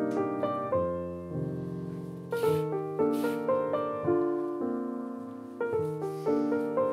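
Background piano music: a slow, gentle melody of single struck notes, each fading away before the next.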